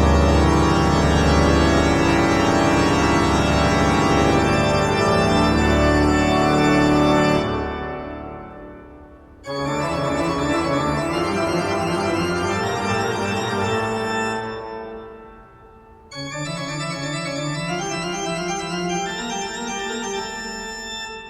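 Background music of organ-like keyboard chords, held in three long phrases that each fade away before the next begins.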